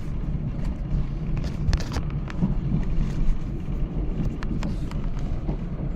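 Steady low rumble inside a diesel train carriage, with a few faint clicks and knocks.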